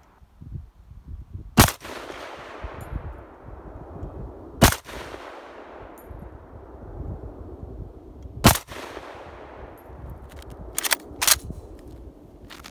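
Three single rifle shots from a Gewehr 43 semi-automatic rifle in 7.92×57mm Mauser, spaced about three to four seconds apart, each followed by a long echo that fades away. Near the end come two sharp clacks as the rifle is handled at the magazine.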